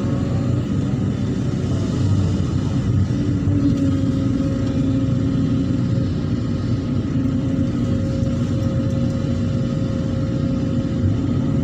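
Hydraulic excavator's diesel engine running steadily under working load: a dense low drone with a steady whine above it that shifts slightly in pitch as the machine works.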